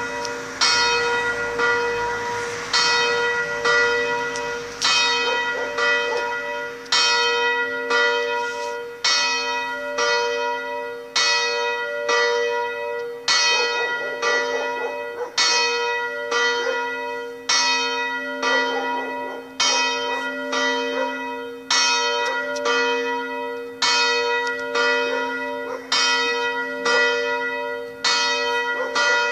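Electrically swung church bells ringing the evening peal, struck about once a second. Each stroke rings on into the next under a steady, sustained hum.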